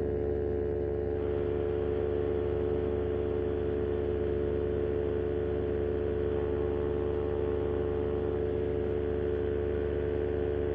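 Moster 185 single-cylinder two-stroke paramotor engine and propeller running steadily at cruise power in flight, with a constant engine drone.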